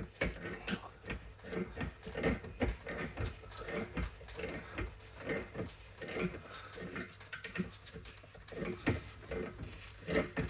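Hand tool working against the piston of a rear brake caliper, winding the piston back into its bore: a run of irregular clicks and scrapes, several a second.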